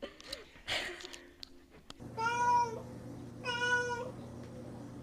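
A domestic cat meowing: two long, level meows about a second apart, beginning about two seconds in, after a few faint clicks and rustles.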